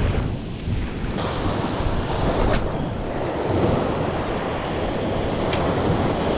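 Small surf waves breaking and washing up the sand, with wind buffeting the microphone. There are three faint ticks partway through.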